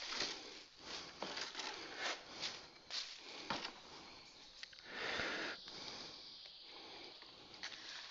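Light rustling and handling noises: a string of short scrapes and shuffles with a longer rustle about five seconds in, as a person handles the toy's cardboard packaging and instruction card.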